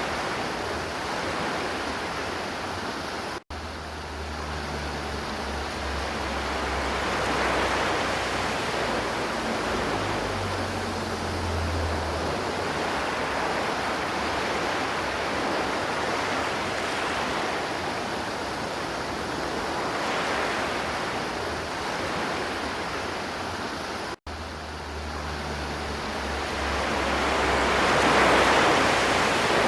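River water flowing, a steady rushing that swells and eases every several seconds. The sound drops out for an instant twice, about three and a half seconds in and near twenty-four seconds.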